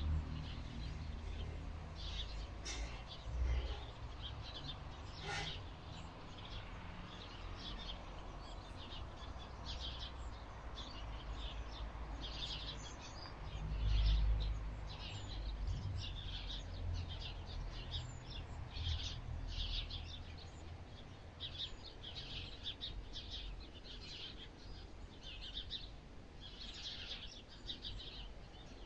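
Small birds chirping, many short calls that come more often in the second half, over a low background rumble that swells about halfway through.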